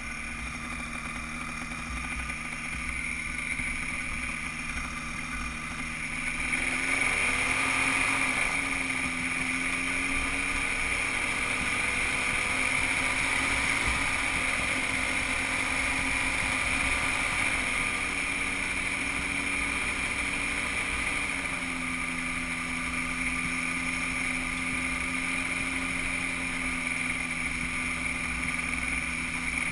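Cosmos weight-shift microlight trike's engine running steadily. About seven seconds in it speeds up and runs louder, holds at the higher speed, then throttles back to its lower note roughly three-quarters of the way through.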